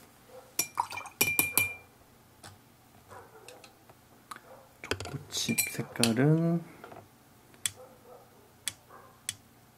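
Paintbrush clicking and clinking against a ceramic watercolour palette while paint is picked up and mixed: a few sharp clicks with a brief ringing tone, in two clusters about a second in and about five seconds in, then single ticks near the end. About six seconds in, a short vocal sound rises then falls in pitch.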